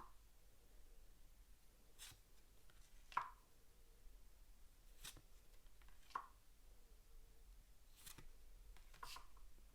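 Faint handling of game cards: six short soft taps as cards are moved and laid down on a table, the loudest about three seconds in.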